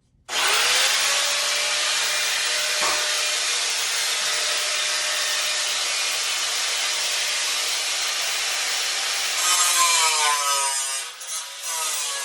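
Electric angle grinder with a cut-off disc switched on a moment in, its whine rising to speed, then cutting into the steel tractor frame with a steady loud hiss. Near the end it gets louder and the motor's pitch wavers as the disc is worked in the cut.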